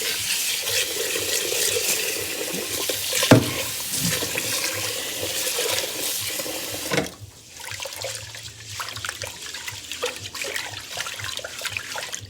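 Kitchen tap running cold water into a pot of rice to rinse off the starch, with one sharp knock about three seconds in. The tap stops about seven seconds in, followed by quieter sloshing and small knocks as the rice and water are swirled.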